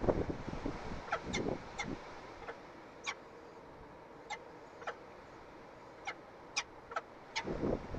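Peregrine falcon chick begging with short, high peeps, about a dozen at irregular intervals, while it is fed; low scuffing and rustling noises near the start and again near the end.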